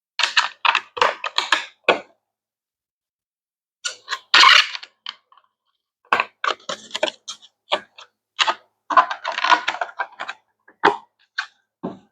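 Hard plastic hydroponic tower parts being handled and fitted together: clusters of quick clicks and clatters, separated by short pauses.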